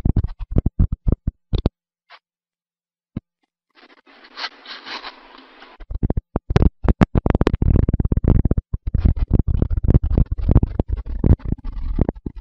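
Microphone pressed against the chest: rapid, irregular low thumps and rubbing. The thumps stop for about two seconds, a hissing scrape follows, and then the thumping comes back thicker.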